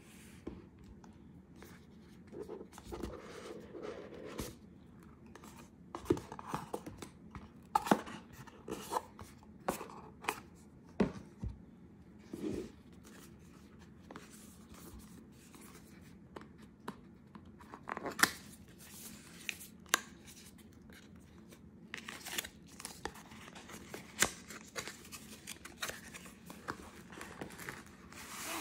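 Cardboard packaging of a camera box being handled and opened: scraping and sliding of card, with scattered taps and knocks as the box and its inserts are set down and unfolded.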